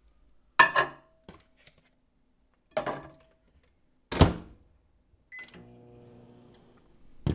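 LG over-the-range microwave oven being loaded and started for another 30-second melting burst: a few knocks as the bowl goes in and the door is shut, the loudest about four seconds in, then a short keypad beep and the oven starting up with a steady hum.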